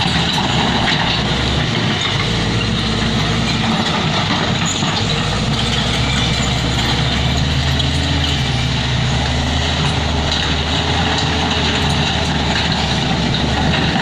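Crawler bulldozer's diesel engine running steadily close by, with a dump truck's engine behind it; the low engine note steps up and down a few times.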